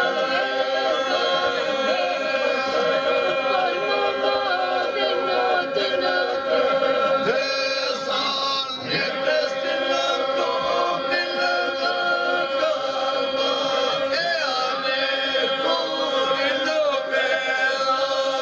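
Lab-style Albanian iso-polyphonic folk song: a group singing unaccompanied, a steady held drone under the moving lead voices.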